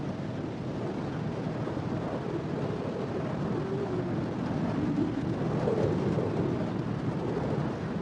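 Strong desert wind from a sandstorm, a steady low rumble with a faint wavering howl in the middle.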